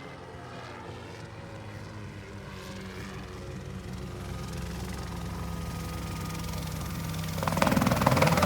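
Mosquito ultralight helicopter's engine and rotor running, growing steadily louder as it approaches, and much louder about seven and a half seconds in.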